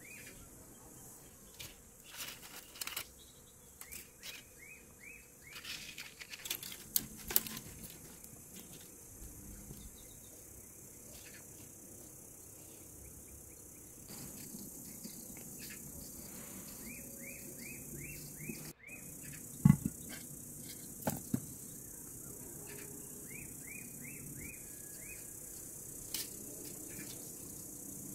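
Birds and insects: a bird repeats a run of quick rising chirps several times over a steady high hiss of insects. Scattered light knocks and clatters, with one sharp thump a little after two-thirds through.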